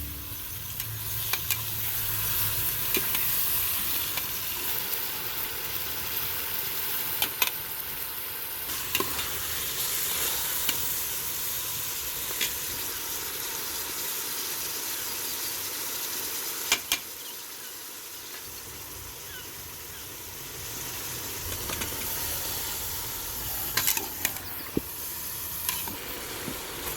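Food sizzling as it fries in oil in a cooking pot, stirred with a utensil, with a few sharp clicks of the utensil against the pot.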